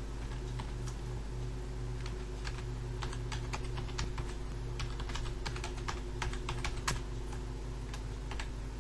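Typing on a computer keyboard: irregular key clicks entering a web address, sparse at first and quicker from about two and a half seconds in, over a steady low hum.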